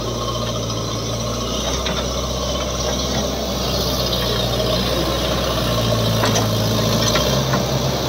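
JCB 3DX backhoe loader's diesel engine running steadily under load as the backhoe arm digs into a dirt bank; the engine note steps up slightly near the end.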